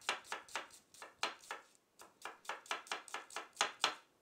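Chef's knife thinly slicing a red onion on a wooden cutting board: a quick, even run of knife strokes tapping the board, about four to five a second, with a short pause about two seconds in.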